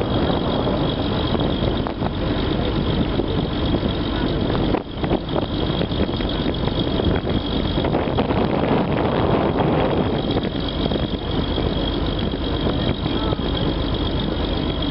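The MV Wairua riverboat's engine running steadily while the boat is under way.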